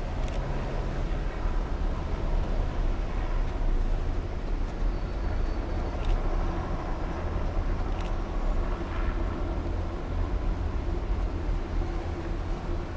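Police patrol cars driving slowly past one after another, a steady rumble of engines and tyres on the road.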